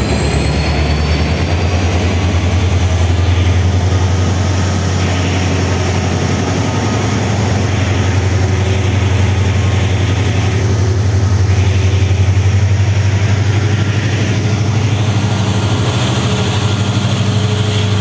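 Diesel locomotive working at full power as an express train pulls out, with a loud, steady low throb. A high whine rises in pitch over the first few seconds, and the coaches follow the locomotive past.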